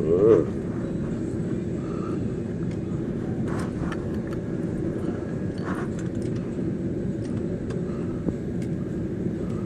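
Steady road and engine noise inside a moving car's cabin, with a brief louder sound right at the start.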